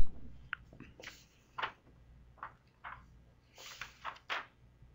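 Computer mouse clicking and small handling noises at a desk: a loud click right at the start, then about eight faint, short clicks and rustles scattered through the rest.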